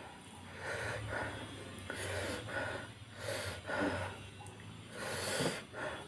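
A man gasping and puffing breath through his mouth, about seven times in a few seconds, as he eats a meal made hot with dalle chillies; the panting is a reaction to the chilli heat.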